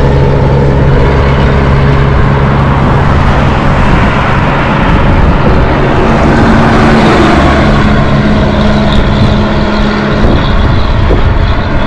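Motor traffic on the road: a loud, steady rush with an engine hum that shifts to a higher pitch about halfway through.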